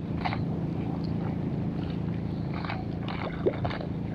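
Steady low engine drone, with a short squeak about three and a half seconds in.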